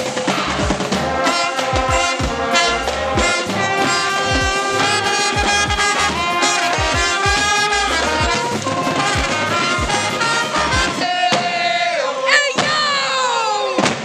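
School pep band playing a brass tune over a steady drum beat: trumpets, low brass and drums. The music breaks off about eleven seconds in, and voices then whoop and shout.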